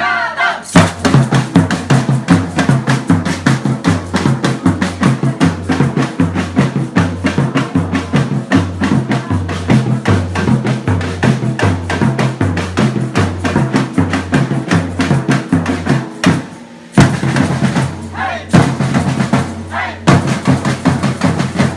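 Batucada samba percussion group playing: surdo bass drums pound a steady, even beat under rapid higher drum strokes. The drumming drops off briefly about sixteen seconds in, then the whole group comes back in together.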